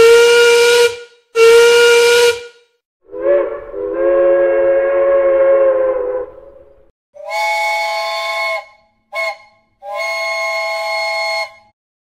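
Several different steam locomotive whistles in turn. First come two short blasts. Then a single long, deeper blast sounds with several tones at once, and near the end a higher-pitched chime whistle sounds long, short, long.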